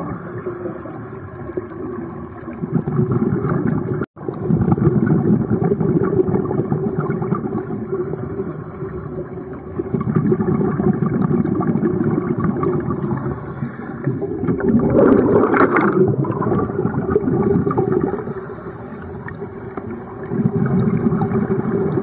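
Scuba divers breathing through regulators, heard underwater: the bubbling rush of exhaled air comes in surges every few seconds, with quieter stretches between. The sound cuts out for an instant about four seconds in.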